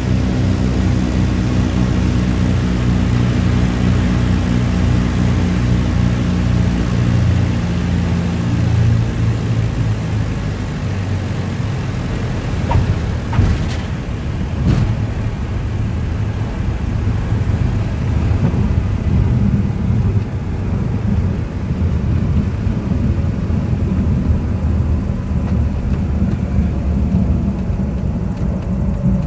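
Cabin noise of a small propeller plane landing: the engine's steady drone, whose even hum fades out about a third of the way in, then two sharp thumps as the wheels touch down, followed by the rumble of rolling out along the runway.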